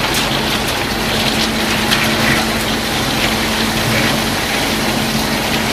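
Small electric motor of a DIY miniature concrete mixer machine running with a steady hum, over a continuous gritty rattling noise.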